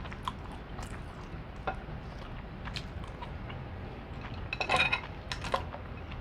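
Scattered light clicks and clinks of dishes and utensils being handled, with a louder run of ringing clinks about four and a half seconds in.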